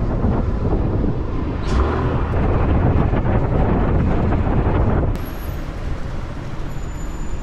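Wind rush and engine and road noise from riding a motor scooter in city traffic, with wind on the microphone. About five seconds in it cuts off suddenly to quieter street ambience.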